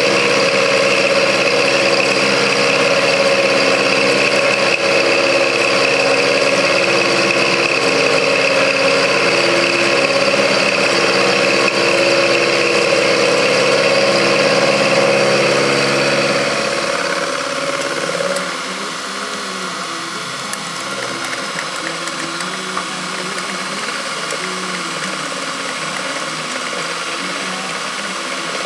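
Benchtop mini milling machine running, its end mill cutting a steel block: a steady motor and cutter hum with rattle. The cut squares up the base of a quick-change tool post. About two-thirds of the way in, the sound drops a little and becomes less steady.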